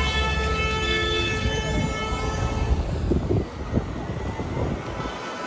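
A vehicle horn held in one long, steady blast that stops about two seconds in. Then road noise and wind rushing on the microphone of a moving scooter, with a few thumps.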